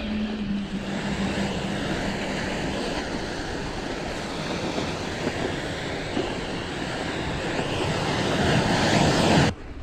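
Steady rushing noise of wind on the microphone and bike tyres rolling over snow as the mountain bike rides along a snowy trail, with a song's last held note fading in the first couple of seconds.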